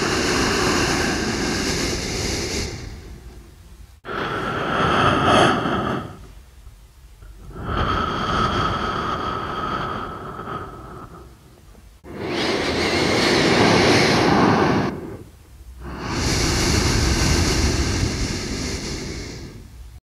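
A person breathing slowly through the nose: about five separate in- and out-breaths, each two to four seconds long, with short pauses between them. Two of the breaths carry a faint nasal whistle.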